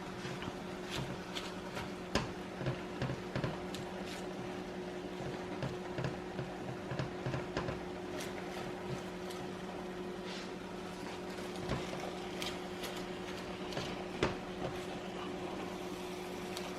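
Spinach, onion and garlic cooking down in a stovetop pot, with scattered light clicks and knocks against the pot over a steady low hum.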